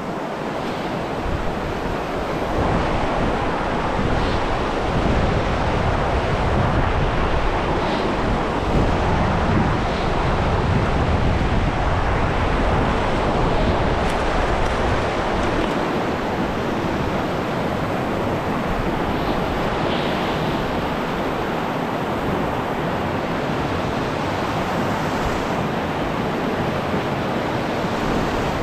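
River rapids rushing steadily, with wind buffeting the microphone in low gusts during the first half.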